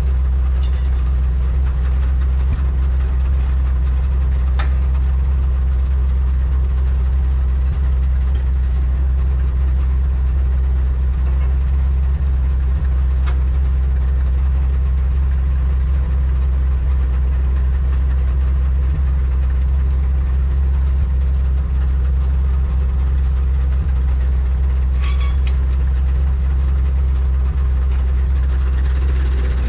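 Side-loader log truck's engine idling with a steady low drone. A couple of light metallic clinks come through, one near the start and one near the end.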